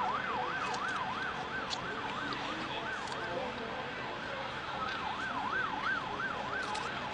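Emergency vehicle siren in a fast yelp, its pitch rising and falling about three times a second. It drops away briefly around the middle and then comes back, over a steady background hiss.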